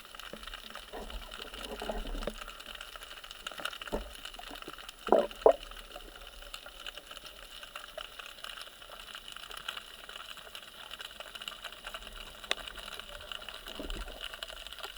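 Water sounds with scattered small clicks, and two louder knocks a little after five seconds in.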